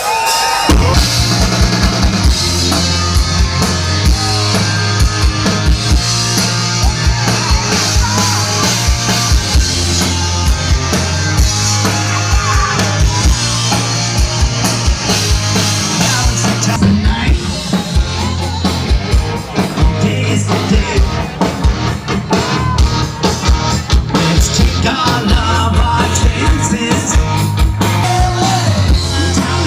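Live rock band playing loudly: a steady drum-kit beat and a repeating bass line, with singing. The full band comes in about a second in.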